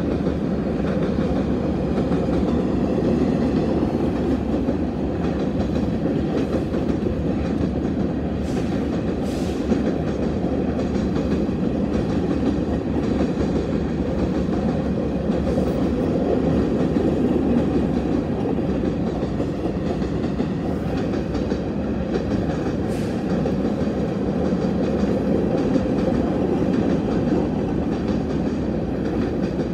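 A train rolling past, a steady low rumble of its wheels on the rails with a few faint clicks.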